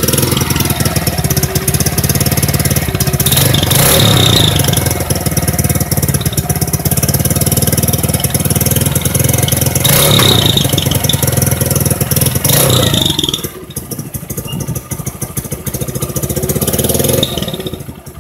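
Honda CG Fan motorcycle's single-cylinder engine, breathing through a Roncar ML estralador (crackle) sport exhaust, revved hard with several sharp surges in speed, then dropping back to a lower idle about 13 seconds in.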